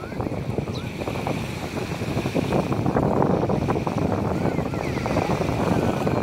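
Wind buffeting the microphone over the wash of surf, with a few faint short bird chirps.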